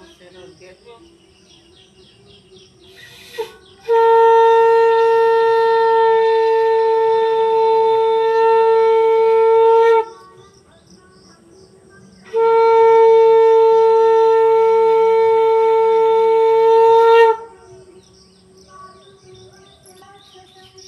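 Conch shell (shankha) blown in two long, steady blasts of about six and five seconds, with a short blip just before the first, sounding as part of a household puja.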